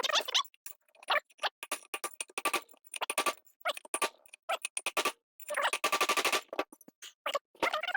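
Rapid metal-on-metal hammering, knocking the old bearing races out of a disc brake rotor hub. Scattered single strikes build into fast runs of ringing blows, the longest about five and a half seconds in.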